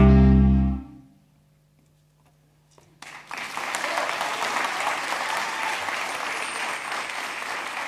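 A clarinet ensemble holds its final chord and cuts off about a second in. After a short silence, the audience bursts into steady applause about three seconds in.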